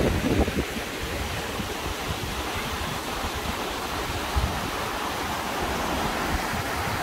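Small waterfall spilling over stepped sandstone ledges: a steady rush of falling water. Wind buffets the microphone now and then.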